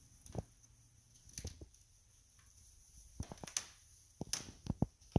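Scattered footsteps and small knocks and scuffs of someone walking through a small, empty, hard-floored room, with a faint steady high hiss under them.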